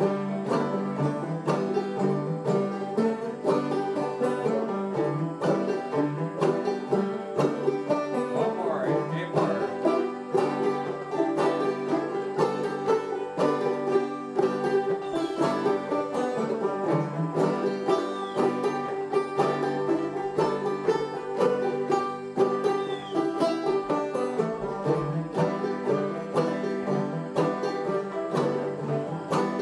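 Several clawhammer-style open-back banjos playing an old-time string-band tune together, with steady, continuous rhythmic picking.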